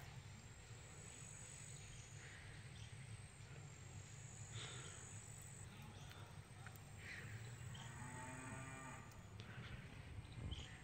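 Faint lowing of cattle: one long, low moo about eight seconds in, over a quiet rural background.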